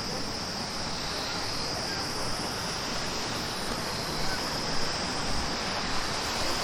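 Steady rush of flowing water, with a constant high-pitched insect drone.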